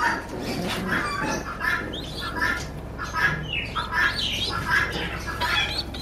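Caged birds chirping and squawking: many short, high calls, several a second, some sweeping up or down in pitch.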